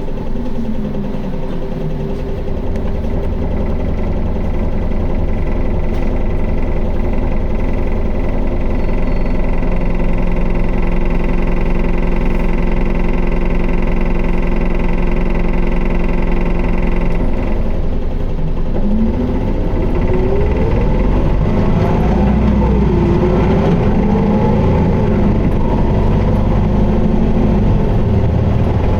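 Isuzu Erga city bus (QDG-LV290N1) heard from inside while under way, its four-cylinder diesel engine running with a steady high whine through the middle. About 18 seconds in the note dips, then climbs and falls several times as the bus pulls and eases off, held in fourth gear in Power mode. This bus is known for an abnormal noise and strong vibration.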